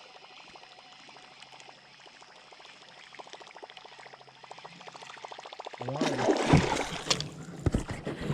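Sudden loud water splashing about six seconds in, with several sharp slaps: a big northern pike striking at the lure right beside the canoe and being missed. Before it, faint rapid ticking.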